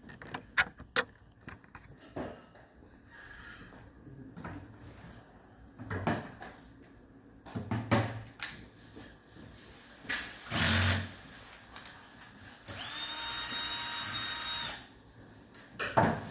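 Electric drill or power screwdriver running steadily for about two seconds late on, after a series of clicks and knocks.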